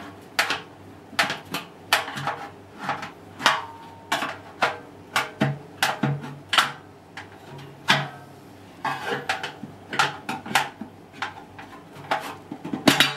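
Irregular metallic clanks and rattles, one or two a second, some ringing briefly, as a washing machine's drum spider is rocked and worked loose from the back of the stainless steel drum.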